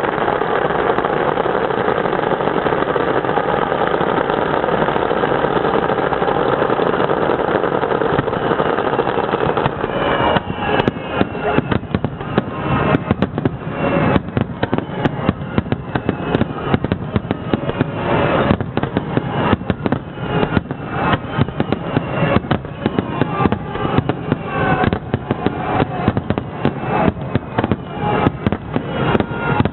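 Fireworks display: a dense, continuous wash of sound for about the first ten seconds, then from about ten seconds in a rapid barrage of aerial shell bursts, many per second, in a grand-finale volley.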